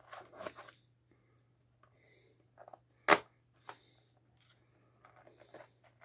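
Hands picking at the plastic wrapping of a trading-card box: scattered short rustles and crinkles, with one sharp click about three seconds in, over a faint steady low hum.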